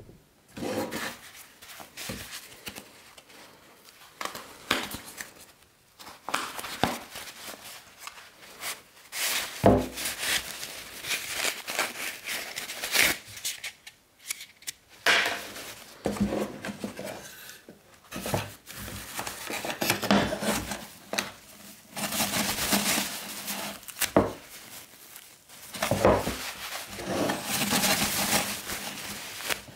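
Toilet paper rustling and tearing as it is handled, the cardboard roll core torn apart, and paper drawn up through the hole of a wooden dispenser box. Irregular bursts of rustling and scraping, with a few sharp knocks of wood.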